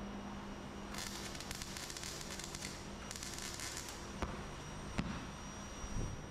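Electric welding arc crackling on the car's steel quarter panel in two runs of about a second and a half each, followed by two sharp clicks and a low knock near the end.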